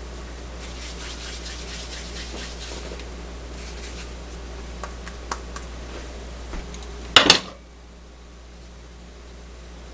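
Kitchen handling sounds: a run of light scratching strokes, a few small clicks, then one loud, short clatter about seven seconds in.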